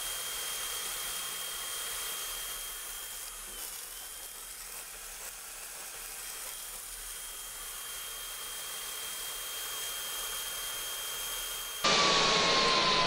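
Stick-welding arc of an E6010 electrode on steel, run from a Miller Multimatic 220 AC/DC multiprocess welder: a steady hiss. Near the end the sound jumps abruptly louder.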